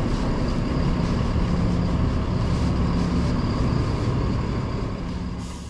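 Busy city street ambience: traffic running with a steady low rumble and hum. It fades out near the end.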